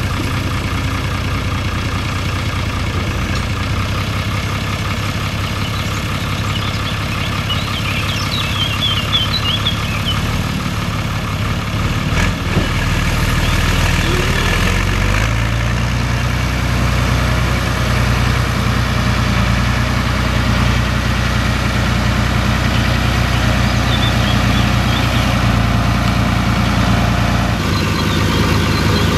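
A Fiatagri 110-90 DT tractor's six-cylinder diesel engine running steadily. About halfway through, its note steps up and gets louder as the revs rise.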